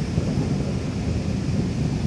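Thunderstorm rumbling low and steady, with no single sharp crack.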